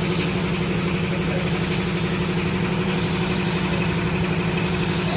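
A motor running steadily with an even, engine-like hum and a hiss high above it.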